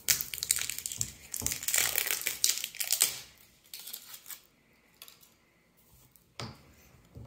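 Crinkling and tearing of the seal being peeled off a sake bottle's cap, a dense crackle for about three seconds that thins out. One sharp click near the end as the cap is gripped.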